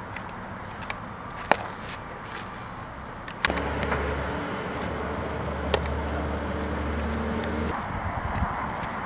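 A few sharp cracks and pops of baseballs being hit and caught during infield fielding practice, the loudest about a second and a half in. For about four seconds in the middle a steady low hum starts and stops abruptly.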